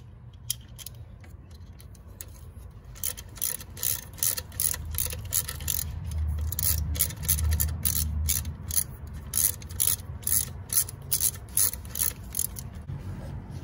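Hand ratchet wrench clicking in quick runs, from about three seconds in, as it backs out an alternator mounting bolt on a BMW N20 engine.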